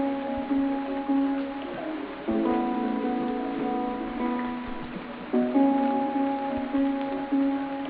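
Soft instrumental background music, with a new held chord about every three seconds.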